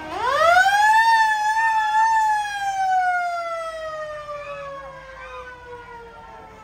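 A siren winding up quickly to a high wail within about a second, wavering briefly at the top, then slowly falling in pitch and fading as it winds down.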